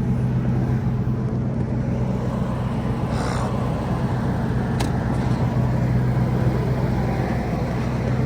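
Truck engine running at a steady, even note with no misfire, heard from inside the cab. A brief soft rustle comes about three seconds in and a small click near five seconds.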